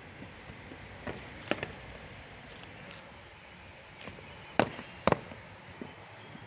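Several sharp knocks at irregular intervals over a steady background hiss, the loudest a pair of knocks about four and a half and five seconds in.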